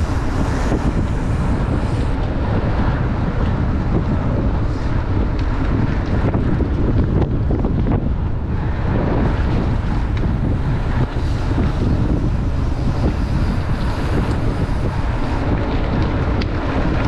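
Steady wind rush on the microphone of a bike-mounted action camera riding a mountain bike at speed on asphalt, with tyre rumble underneath.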